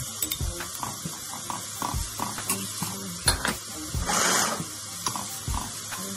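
Metal spoon clinking and scraping against a stainless steel sauté pan as chopped spinach is stirred into diced onion and bell pepper frying in oil, over a steady sizzle. A brief louder hiss comes about four seconds in.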